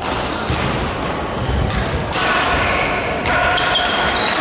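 Badminton rally in a large sports hall: several sharp racket strikes on the shuttlecock, dull footfalls on the court, and from about halfway on, short high squeaks of players' shoes, all echoing in the hall.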